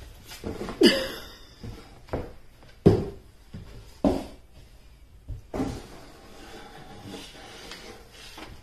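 Cardboard box knocking and scraping on a hardwood floor as a cat pounces on it and tips it about: about five sharp thuds, roughly a second apart.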